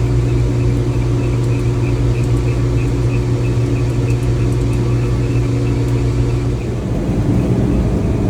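Steady machinery drone with a strong low hum and a faint, even pulsing above it. The hum changes to a different pitch about seven seconds in.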